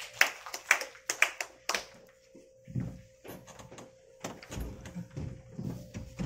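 A few hand claps, about two a second, then dull thumps and shuffling of people walking and settling into seats.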